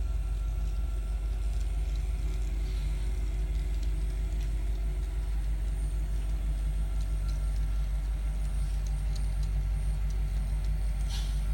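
N scale model train running over the layout track: a steady low rumble with a few light ticks, and a short rattle near the end.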